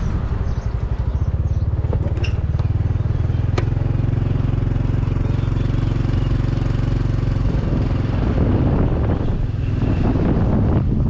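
Motorcycle engine running steadily at low speed, heard from the rider's seat with wind on the microphone; about eight seconds in the engine note gives way to mostly wind noise.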